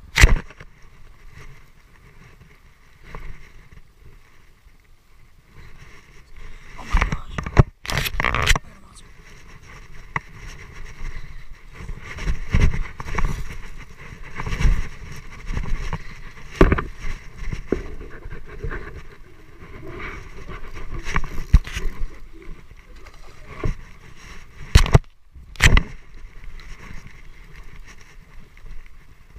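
Wind and handling noise on a body-worn camera's microphone, with irregular footsteps crunching over dry leaves and rock through the middle. A few sharp clicks stand out: just after the start, around 8 seconds, and twice near 25 seconds.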